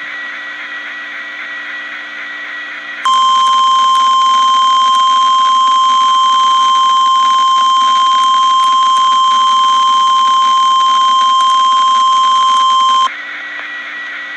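Emergency Alert System warning tone on a NOAA Weather Radio broadcast, announcing a weather warning. After about three seconds of radio hiss, a loud single steady tone starts abruptly, holds for about ten seconds, and cuts off back to the hiss.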